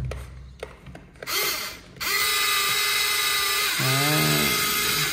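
The small electric motor and gears of a repaired excavator's track drive, run to test the newly fitted track chain. A few clicks come first, then from about two seconds in the motor whirs steadily.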